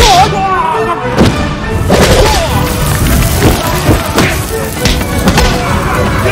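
Martial-arts fight sound effects: repeated punch and kick impact thuds, one every half second to a second, over a music score.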